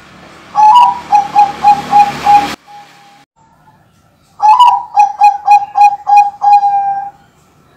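Caged zebra dove (perkutut, Bangkok song strain) singing two phrases of rapid, clipped coos. The second phrase ends on a longer held note. A hiss runs behind the first phrase and cuts off suddenly.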